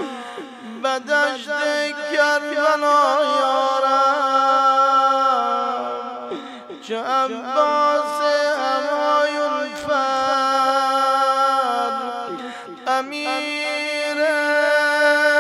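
A man's voice chanting a Persian mourning elegy for Imam Hussein (a noha) in long, drawn-out held notes, pausing briefly for breath a few times.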